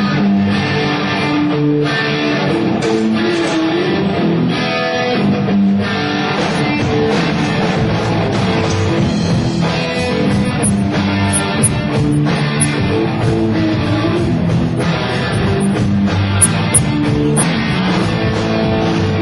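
A rock band playing live: guitars over a drum kit, loud and unbroken.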